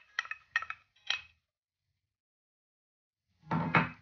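A wooden spoon tapping and scraping against a small glass bowl, knocking minced garlic into a pan: a quick run of clinks in the first second or so. Near the end, a short, louder burst of noise.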